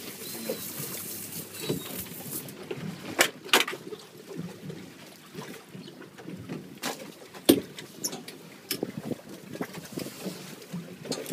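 Choppy water lapping and slapping against the hull of a small drifting fishing boat, with a few sharp knocks: two close together about three seconds in and the loudest about seven and a half seconds in.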